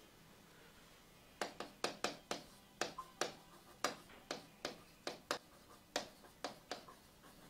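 A pen writing on a board: quick, light taps of the pen tip against the surface with each stroke, irregular at about three a second, starting about a second and a half in.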